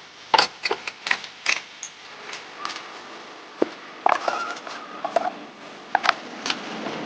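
Kitchenware being handled and set down during cleaning: an irregular run of sharp clicks and knocks, some with a short ringing clink.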